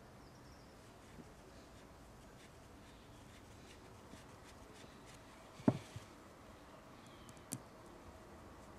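Light clicks and scrapes of a screwdriver and small metal parts as screws are refitted on a chainsaw carburettor, with a sharper click a little past halfway and another near the end.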